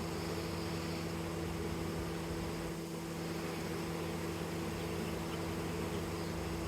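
Honey bee swarm humming: a steady, even drone of many bees flying around the hives.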